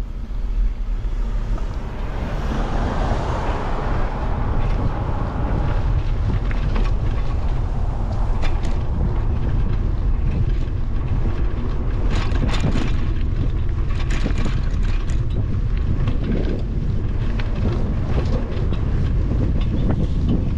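Wind buffeting the microphone of a bicycle-mounted camera, over the steady rumble of the bike rolling on asphalt. A broader rushing noise swells and fades a few seconds in, and a cluster of clicks and rattles comes about two-thirds of the way through.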